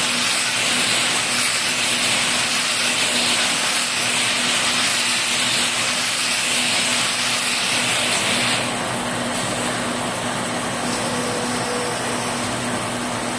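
Belt-type baler-wrapper machine running: a steady mechanical noise with a strong hiss and a low hum. The hiss drops off and the noise gets slightly quieter about eight and a half seconds in.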